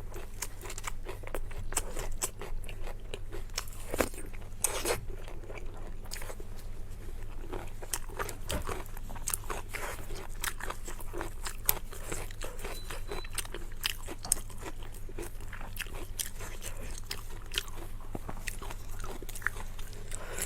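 Close-miked eating sounds: chewing and biting into braised pork knuckle, with irregular wet clicks and crackles of the mouth and food.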